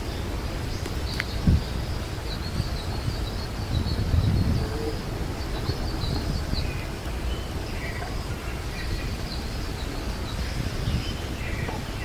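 Small birds chirping in many short, high calls, scattered through the whole stretch, over a steady low rumble of wind noise on the microphone.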